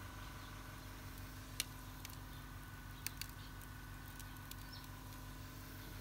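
A thin stream of water pouring from the water heater's faucet and splattering onto concrete, with a few sharp clicks, the loudest about a second and a half in and two more close together about three seconds in.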